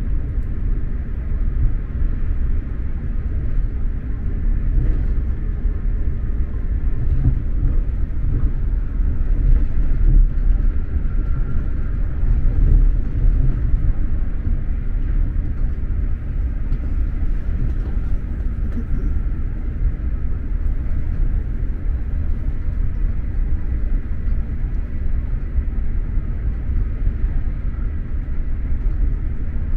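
SJ X2000 high-speed train running at speed, a steady low rumble from the wheels and track heard inside the passenger carriage, with a faint high whine that comes and goes around the middle.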